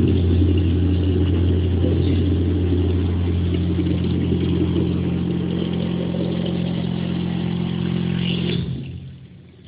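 Milk vending machine's dispensing pump running with a steady hum while milk pours into a bottle, cutting off about nine seconds in at the end of a timed 500 ml pour.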